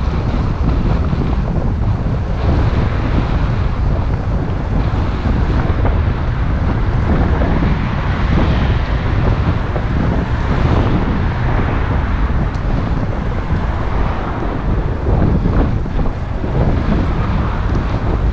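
Wind buffeting the microphone: a loud, steady rumble with no let-up.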